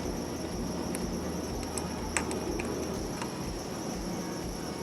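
A few faint, sharp clicks and ticks of a capacitor's wire leads knocking against a circuit board as they are test-fitted into its holes, over a steady high-pitched whine and hiss.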